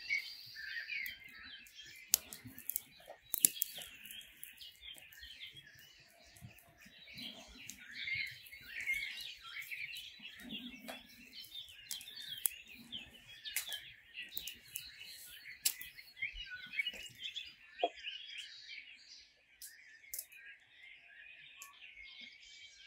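Many birds chirping and singing together in woodland, with sharp crackling snaps scattered over it as stiff dried salt cod is torn into flakes by hand.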